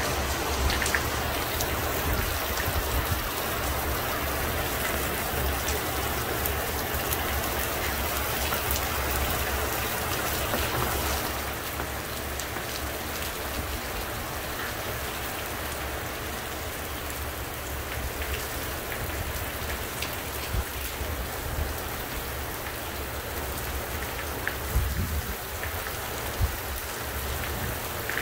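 Monsoon rain falling steadily, with scattered drops ticking on nearby surfaces. It eases a little about eleven seconds in, and a few sharper drop hits stand out near the end.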